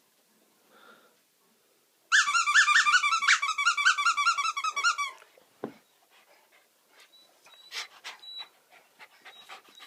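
Dog, a Jack Russell–West Highland terrier mix, whining in a rapid string of high-pitched squeaks, about seven a second for roughly three seconds starting about two seconds in, followed by faint clicks and snuffling.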